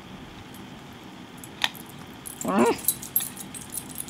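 Small clicks and light metallic rattling as the battery and wires of a homemade capacitor-bank circuit are handled. A short whine-like vocal sound comes about two and a half seconds in and is the loudest thing heard.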